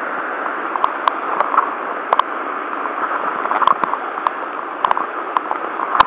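A waterfall on a swollen mountain stream rushing close by as a steady hiss of water, with a dozen or so short, sharp clicks and knocks scattered through it.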